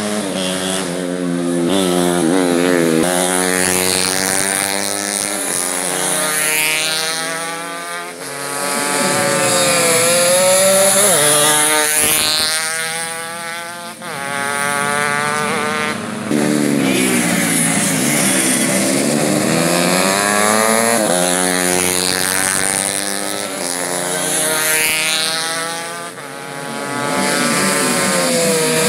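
Small racing motorcycles, a Yamaha Jupiter four-stroke against a two-stroke, revving hard and accelerating, the engine pitch climbing and falling again and again through the gears.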